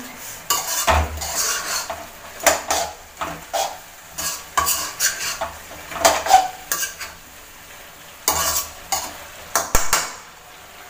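Metal spatula scraping and clanking against a metal kadai as chicken pieces are stirred, in irregular strokes with a short pause about two-thirds of the way through.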